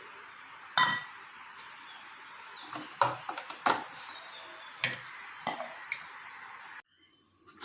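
Kitchen utensils knocking and clinking against dishes: about eight sharp, separate strikes over five seconds, the first and loudest with a brief ring. A steady background hiss stops abruptly near the end.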